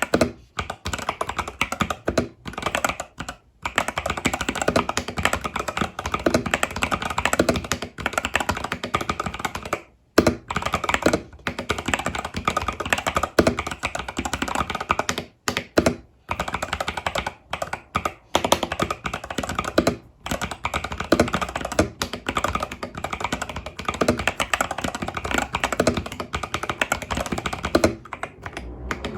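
Continuous fast typing on an Epomaker TH80 Pro mechanical keyboard with Epomaker Budgerigar tactile switches and stock keycaps: a dense run of key clicks and clacks, broken by a few short pauses.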